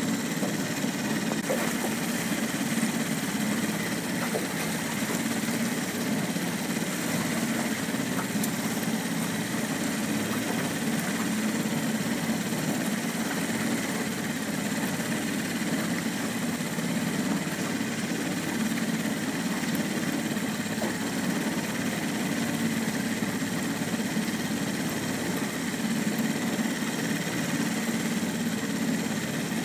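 Small boat's outboard motor running steadily.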